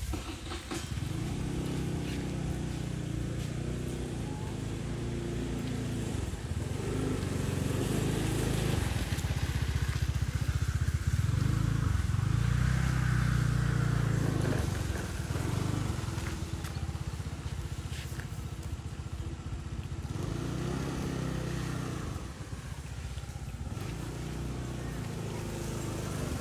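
A motor vehicle engine running with a steady low hum, growing louder from about a third of the way in and easing off again after the middle.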